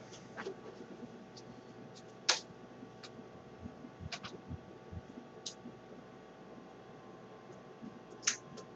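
Scattered light clicks and taps from plastic being handled, sharpest about two seconds in and again near the end.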